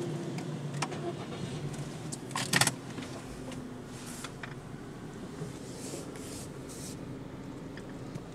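Low steady hum heard from inside a car in an automatic rollover car wash as the cycle ends, with a short clattering rattle about two and a half seconds in and a few brief hisses afterwards.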